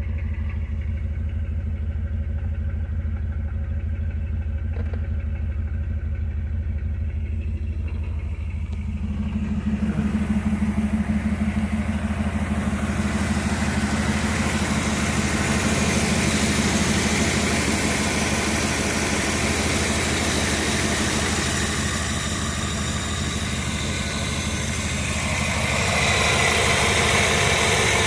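Warmed-up carbureted car engine running at idle, about 650 RPM, with a steady low hum; it grows louder and fuller about nine seconds in and again near the end.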